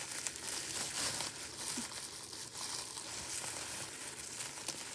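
Packaging wrap crinkling and rustling in the hands as a candle and bath bomb are unwrapped.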